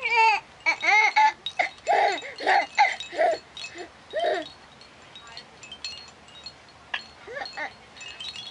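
A hanging baby toy jingles with light chiming rings as a cat bats at it with its paws. Over the first half come a baby's short, high squeals.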